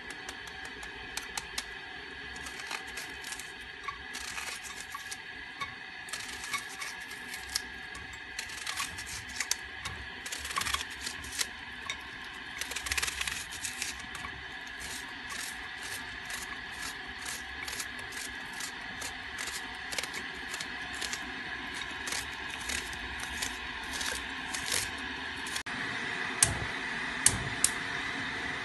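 A knife chopping an onion held in the hand, with quick irregular cuts and small pieces dropping into a stainless steel pot, over a steady faint hum.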